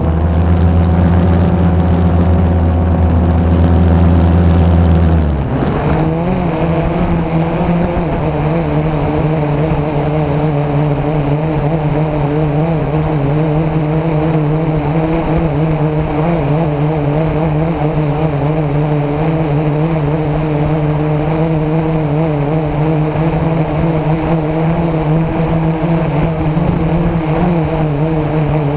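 Blade 350 QX3 quadcopter's brushless motors and propellers humming steadily in flight, heard close up from the camera mounted on the drone. About five seconds in, the hum shifts and its deepest rumble drops away, then it holds steady.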